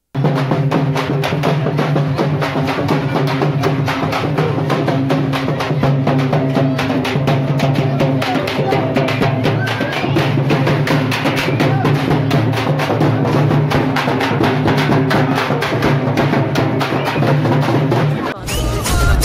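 Large procession drums beaten rapidly with sticks, a dense, fast, unbroken rhythm over steady low tones, with crowd voices mixed in. The sound changes abruptly near the end.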